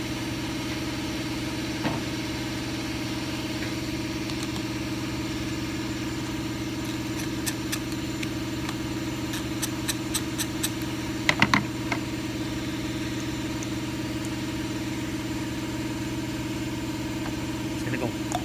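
Steady low mechanical hum, like a machine or engine running, with a run of light sharp clicks and clinks in the middle, the loudest a little past halfway.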